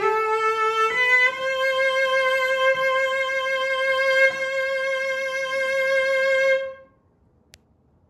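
Antique German cello from Saxony, made around 1900, bowed: a short note steps up into a long, steady high note held for about five seconds, which ends a little before the close.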